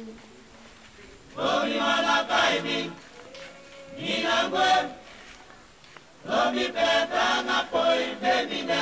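Voices singing a chant-like song without instruments, in three phrases with short pauses between.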